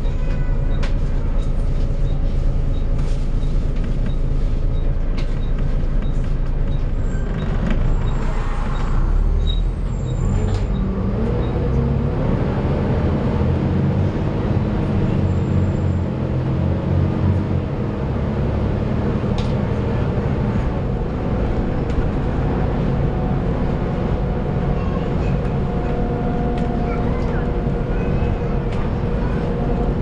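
Volvo B7TL double-decker bus's six-cylinder diesel engine running while under way, heard from the top deck with interior rattles. There is a short hiss about eight to ten seconds in, and the engine note changes soon after.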